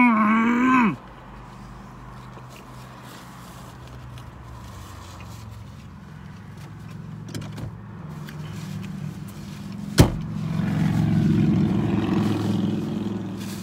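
A short hummed "mmm" while eating, then faint chewing over a low car engine drone. The drone swells to its loudest about eleven seconds in and then eases off, with one sharp click just before the peak.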